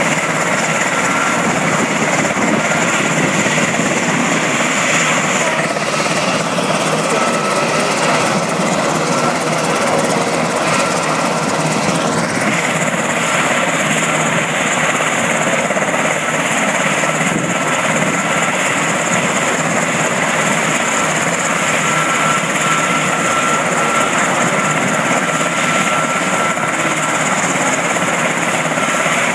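Coast Guard MH-60 Jayhawk helicopter's twin turboshaft engines running on the ground before take-off, a loud steady rush with a steady turbine whine. A higher whine drops out about five seconds in and returns about seven seconds later.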